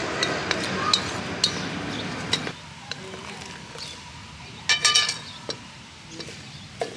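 Metal spoon clinking and scraping against a large metal mixing bowl as dry flour and seasoning are stirred: separate sharp clinks, then a louder quick run of ringing clinks about five seconds in. A steady rushing background stops about two and a half seconds in.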